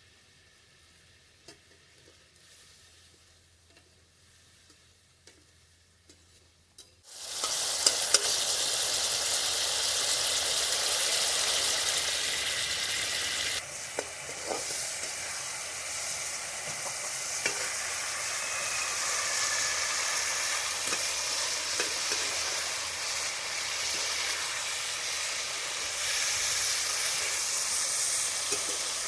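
Food dropped into hot oil in a pan, sizzling loudly and steadily after about seven seconds of near quiet, with a few sharp knocks during the frying.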